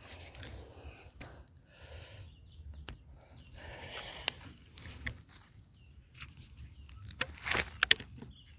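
Footsteps and rustling through leaves and brush, with a cluster of sharp crackles near the end, over a steady high-pitched insect drone.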